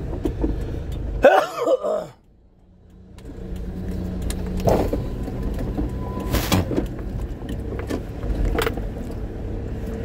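Car engine running, heard inside a Hyundai's cab. Just over a second in there is a loud, shifting burst, then a sudden drop to near quiet. Over the next couple of seconds the steady engine hum builds back up, with a few sharp clicks and knocks.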